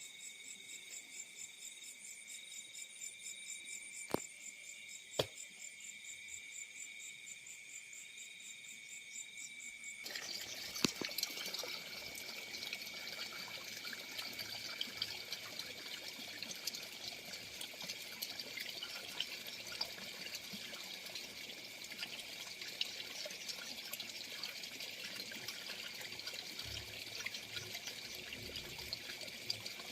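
Field crickets chirping in a steady high trill. Two sharp clicks come a second apart early on. About ten seconds in, a steady crackly rushing noise, like running water, comes in and continues under the chirping.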